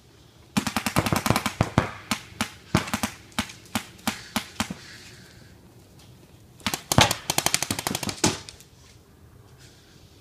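Paintball markers firing rapid strings of shots, several a second, in three volleys of one to two seconds each with short lulls between.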